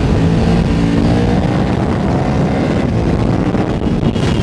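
KTM 1290 Super Duke R's big V-twin with full Akrapovič exhaust running hard under acceleration, its pitch rising about a second in, with wind rush over the microphone.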